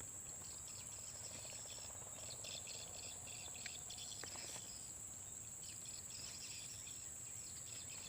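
Rainforest insects calling: a steady high-pitched drone under rapid, pulsing chirring that rises and falls in loudness, with a few faint bird chirps.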